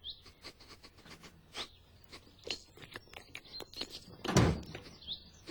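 Scattered light knocks and taps with a few short, high bird chirps, and one louder low thump a little over four seconds in.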